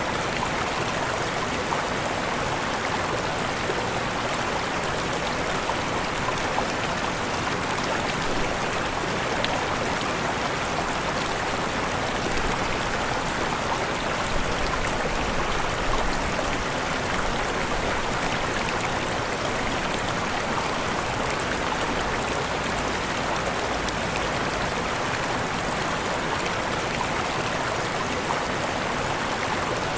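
Waterfall: steady rushing water, an even hiss without breaks or changes.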